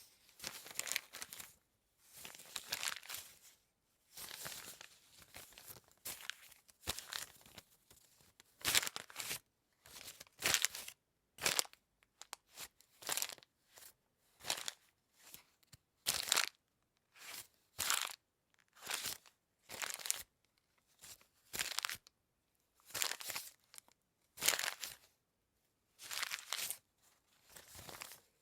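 Paper being crunched and crumpled by hand in a long series of short, crackling bursts, about one or two a second, with brief pauses between them.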